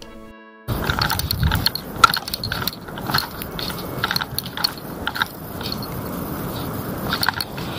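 Footsteps crunching and clicking on a dry forest trail, irregular steps over a rustling, rumbling background, starting suddenly about a second in.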